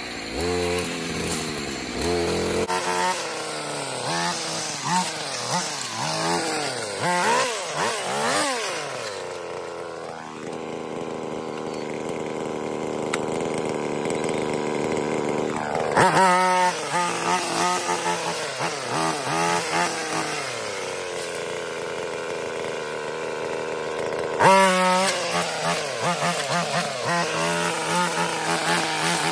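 Two-stroke petrol brushcutter cutting through undergrowth, its engine revving up and down over and over as the throttle is worked. It settles to a steadier, lower run for several seconds about a third of the way in, then revs up sharply again past halfway and once more near the end.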